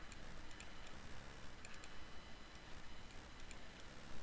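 Faint, scattered clicks of a computer mouse over a low steady hiss, irregular and a few to the second.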